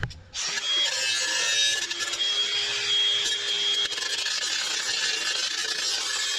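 Small rotary tool's grinding wheel held against the freshly cut edge of the metal air cleaner base, grinding it smooth. The tool's whine holds steady under the grinding noise.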